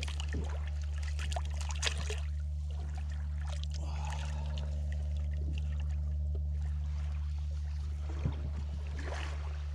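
Small splashes and trickling water as hands work a fish in a landing net at the water's surface, with clusters of splashes in the first two seconds, about four seconds in, and near the end, over a steady low hum.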